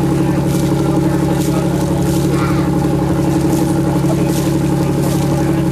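Boat engine running at a steady cruising speed, a constant hum heard from on board.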